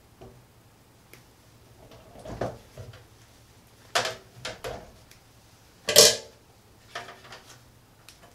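Scattered clicks and knocks of a screwdriver and wires being worked at a circuit breaker's terminal screws in a metal breaker panel, about five short handling sounds with the loudest knock about six seconds in.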